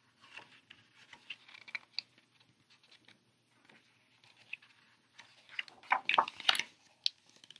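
Paper picture book being handled, with faint rustles and small clicks of the pages, then a louder rustling as a page is turned about six seconds in.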